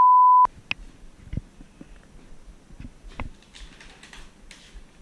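A loud, steady single-pitch censor bleep cuts off about half a second in. It is followed by scattered light clicks and knocks and some soft rustling of handling and movement in a small room.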